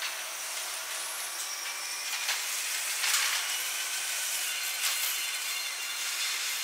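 Harbour and shipyard ambience played back at four times speed: a steady high-pitched hiss with scattered short clicks and knocks.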